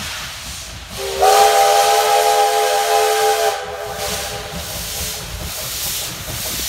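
Steam locomotive sounding one long whistle blast, several tones held together for about two and a half seconds starting a second in, over the steady hiss of its working steam exhaust.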